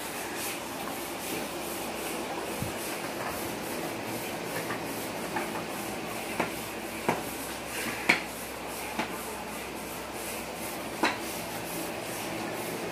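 Stand-type hand air pump worked up and down in repeated strokes, air rushing through its hose to inflate a vinyl paddling pool, with a few sharp clicks from the pump.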